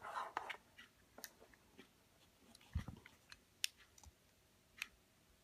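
Faint, scattered clicks and light taps of a hot glue gun and a plastic game case being handled, with one soft, low thump near the middle.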